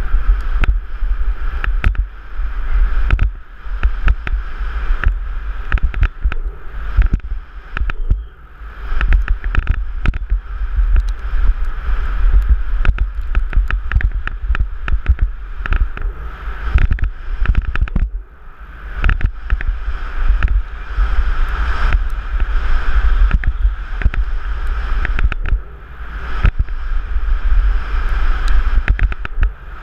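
Downhill mountain bike ridden fast over a dirt track, heard from a helmet camera: wind rumbling on the microphone and tyre noise on dirt, with frequent sharp knocks and rattles from the bike over bumps. The noise eases briefly a couple of times.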